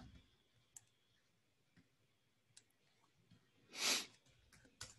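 A few faint computer mouse clicks, with one short breath about four seconds in, the loudest sound.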